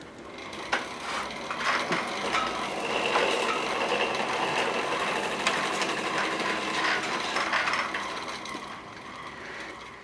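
Exercise bike flywheel whirring as it spins, with the taped hub of a small AC ceiling fan motor pressed against it and turned by friction as a generator. The sound builds over the first few seconds, holds steady with a few clicks, then fades near the end.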